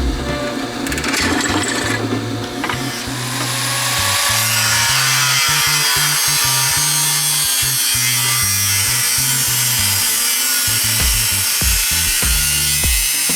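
An electric power tool cutting or sanding wood, its motor pitch sagging and recovering under load from about three seconds in, over background music.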